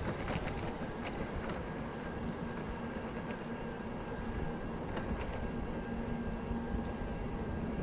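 Bicycle riding along a paved trail: steady wind rumble on the microphone and tyre noise, under a constant low hum. Scattered light clicks and crackles come mostly near the start and around the middle.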